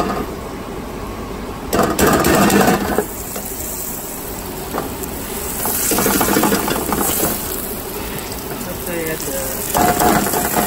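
A spatula scraping butter into a stainless steel saucepan over heat, the butter starting to sizzle as it melts, over a steady hiss. The scraping is louder about two seconds in, again around six to seven seconds, and briefly near the end.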